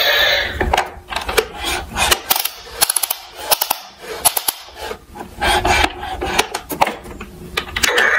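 A hard-plastic Tonka toy fire truck being handled among other toy vehicles in a cardboard box: scattered clicks and knocks of plastic on plastic, with rubbing and scraping between them.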